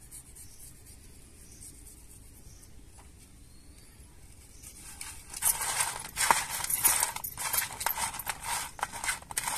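Hard-shelled crab pieces clicking and rattling against a stainless steel dish as they are tossed by hand in salt and turmeric. It starts about halfway through, after a quiet stretch, and goes on as a dense, irregular clatter.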